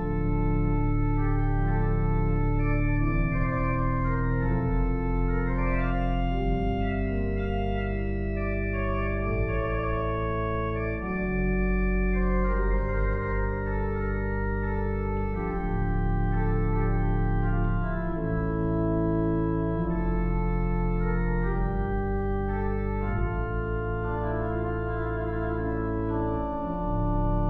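Daniel Jaeckel's Opus 43, a North German Baroque-style pipe organ, playing a chordal passage on the manuals with a deep pedal bass held beneath. The chords change every second or two and the sound stays full and steady throughout.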